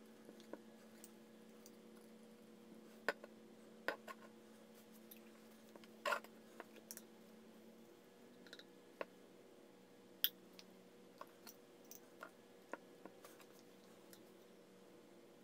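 Scattered light clicks and taps of PVC pipe fittings and a can of PVC cement being handled, a few louder knocks among them, over a faint steady hum.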